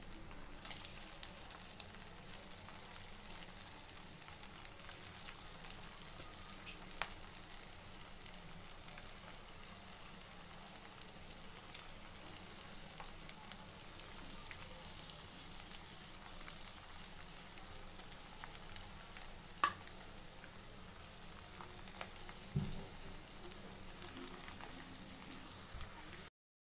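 Poha-and-potato rolls deep-frying in hot oil in a kadhai: a steady sizzle with a few sharp pops as more rolls go in. The sound drops out for a moment near the end.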